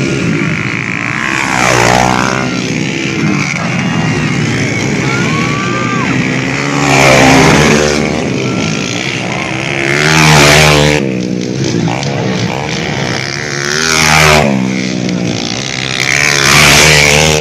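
Motocross bikes racing past one after another, their engines revving hard. The sound swells and falls in pitch with each of about five passes.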